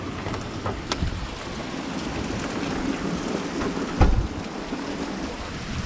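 Heavy rain falling steadily, with a few sharp taps early on and one loud low thump about four seconds in.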